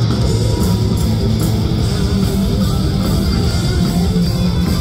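Live heavy metal band playing: distorted electric guitars, bass and drums at full volume, picked up from the audience.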